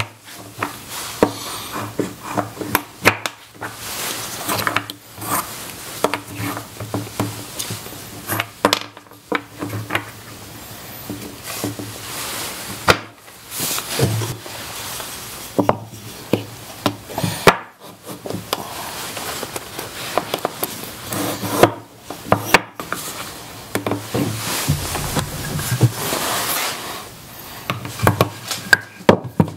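Wooden bench dogs being pushed up and slid in their holes in a wooden workbench top. They make a run of sharp wooden knocks and clicks with rubbing between them, broken by short pauses. The dogs are laminated ebony and walnut dowels.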